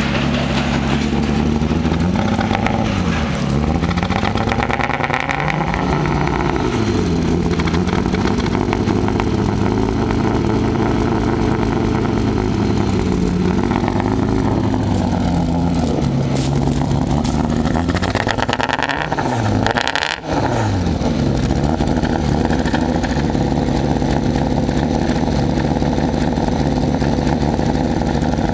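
Mazda MX-6 LS V6 running at the exhaust with a misfire. Its engine speed rises and falls a few times and settles back to idle. The owner suspects the misfire is weak spark from a failing distributor.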